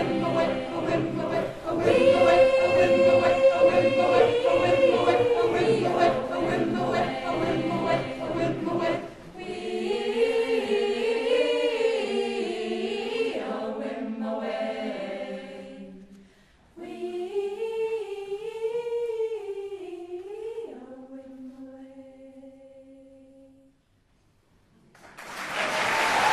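A choir singing, full and many-voiced at first, then in thinner phrases that end on a held low note fading away. After a brief silence, applause starts near the end.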